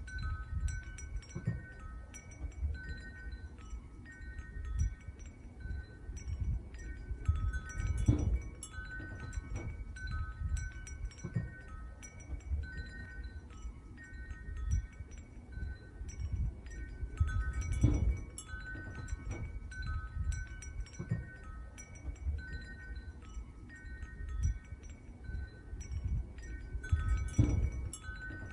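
Wind chimes ringing on and off in the wind, several clear notes overlapping, over gusty wind buffeting the microphone.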